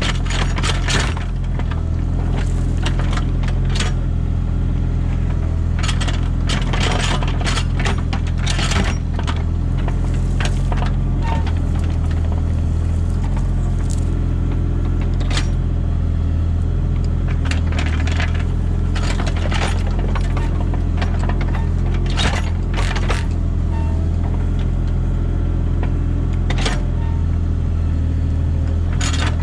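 Mini excavator's diesel engine running steadily, with irregular clanks, knocks and scrapes from the bucket and arm working as it digs a ditch.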